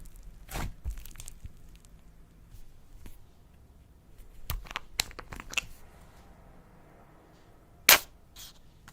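Slime being worked by hand: scattered sharp pops and crackles, with one loud pop near the end.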